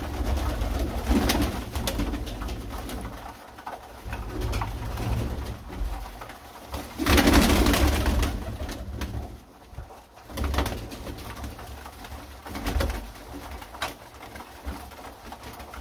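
A flock of domestic pigeons cooing in a small loft, with short flurries of wing flapping as they jostle at a grain trough, the loudest about seven seconds in.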